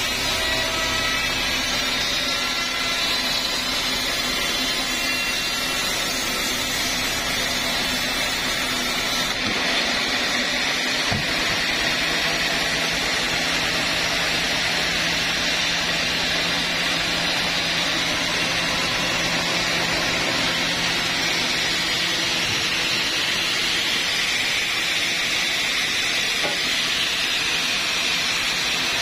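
Sawmill band saw running and cutting lengthwise through an old teak log, a steady hissing whine. Its tone changes about nine seconds in.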